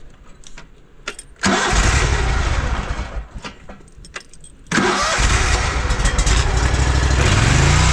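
Briggs & Stratton Vanguard 27 V-twin engine on a high-pressure drain jetter being started with the key: a few clicks at the controls, a first start that dies away after a couple of seconds, then a second start at about five seconds that catches and keeps running, speeding up near the end.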